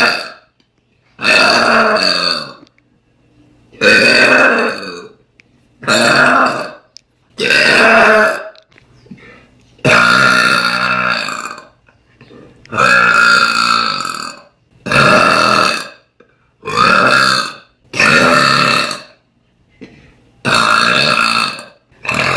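A young woman belching loudly again and again: about ten long burps, one roughly every two seconds.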